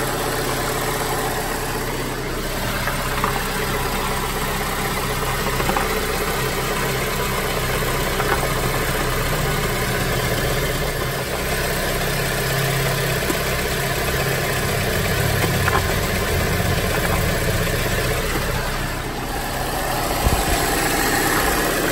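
Peugeot 306's 1.8-litre XU7JP four-cylinder petrol engine idling steadily, driving its belt-driven hydraulic power-steering pump, while the steering is turned back and forth to test the freshly rebuilt rack after refilling with ATF.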